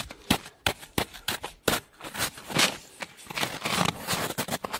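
Hard frozen snow crust, iced over by a night frost, crunching and cracking under a boot: a run of irregular sharp cracks and crunches.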